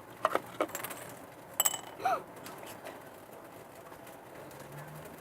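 A few light clicks and clinks of small objects being handled, most in the first two seconds, with a short rising-and-falling voice-like sound about two seconds in.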